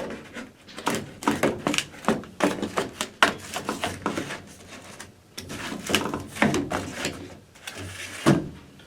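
New air filter being fitted into a Carrier gas furnace: irregular rustling and light knocks of its cardboard frame sliding and bumping into the filter slot.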